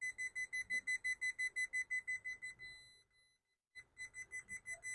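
Multimeter continuity beeper sounding in a rapid stutter of short high beeps, about seven a second, fading out just before halfway, stopping briefly, then starting again. The broken beeping comes from the wire-piercing probe making intermittent contact with the wire.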